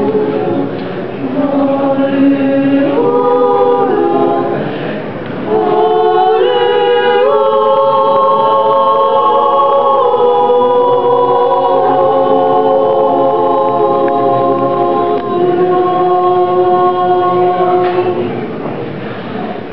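Women's choir singing a sacred piece a cappella in several parts, with long held chords and a brief break about five seconds in.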